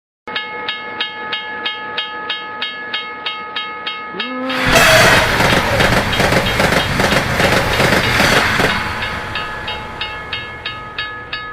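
US wigwag railroad crossing bell ringing about three strikes a second. About four seconds in, a train horn sounds briefly and a train rushes past for about four seconds, after which the bell rings on alone.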